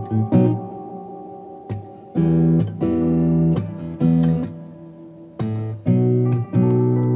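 Solo guitar strumming chords in short groups of strokes, with the chords ringing out in brief pauses between the groups.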